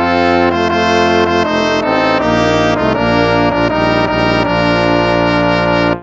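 Instrumental hymn music with slow, sustained chords that cuts off abruptly at the end.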